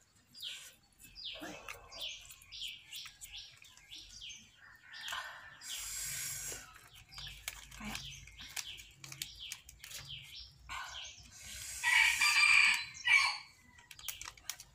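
A rooster crowing once, the loudest sound, about twelve seconds in, over a run of quick high bird chirps several a second. A short rustle comes about five seconds in.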